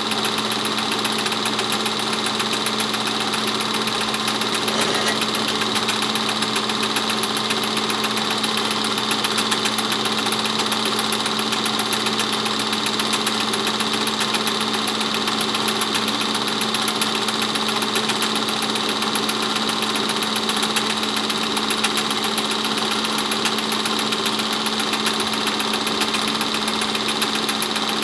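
8mm film projector running: a steady mechanical whir with a fast, even clatter of the film being pulled through the gate.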